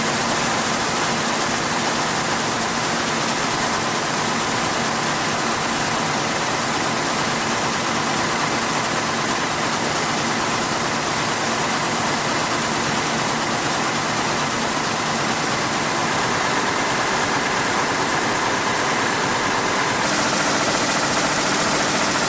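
Weaving looms running in a weaving mill, a loud steady din of machinery in which the individual beats blend together. The sound shifts slightly, getting a little hissier, near the end.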